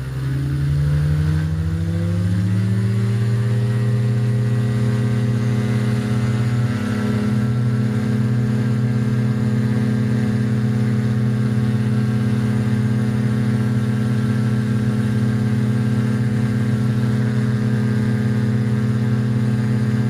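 Rotax 582 two-stroke twin engine and three-blade propeller of a Spectrum Beaver ultralight at takeoff power. The pitch rises over the first three seconds as the throttle opens, then holds steady through the takeoff roll and climb. This is a test circuit on a gearbox just fitted with two new bearings, after a bad bearing had caused a vibration.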